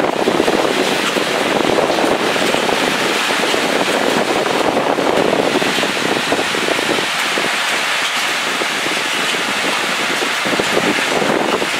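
Heavy rain pouring down with wind in a severe thunderstorm, a dense, steady hiss without a break.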